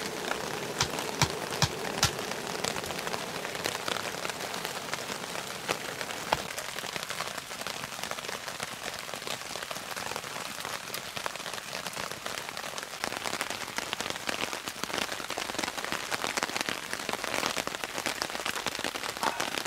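Steady rain falling on a tarp shelter and wet ground, a continuous hiss dotted with sharp drop ticks, several louder ones in the first two seconds.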